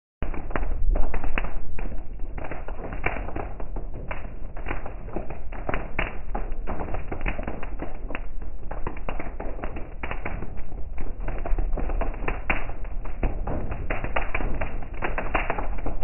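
Heavy rain hitting a car's roof and windshield, heard from inside the cabin: a dense, irregular patter of drop taps over a low steady rumble.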